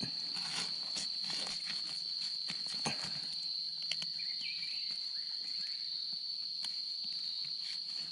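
Insects keeping up one steady, unbroken high-pitched drone. Scattered short crackles and clicks come over it, mostly in the first three seconds.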